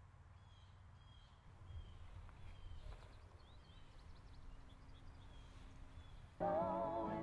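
Faint birds chirping over a low rumble of outdoor ambience. Near the end, music with singing starts suddenly, much louder.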